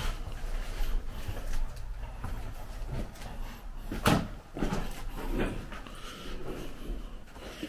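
Footsteps, scuffs and small knocks of someone walking through a derelict, debris-strewn building, with one sharp knock about four seconds in.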